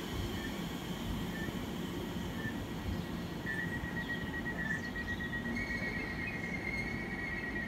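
Electric multiple-unit train rolling slowly past the platform: a steady low rumble, with a steady high-pitched whine starting about halfway through and a second, slightly higher tone joining near the end.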